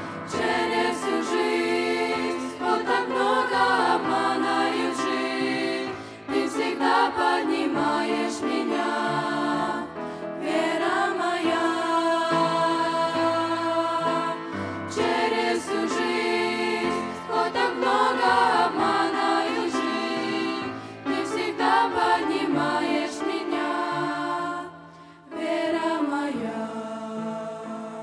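A group of teenage girls singing a Christian song together through handheld microphones, in phrases a few seconds long, over a steady low accompaniment whose notes change every few seconds.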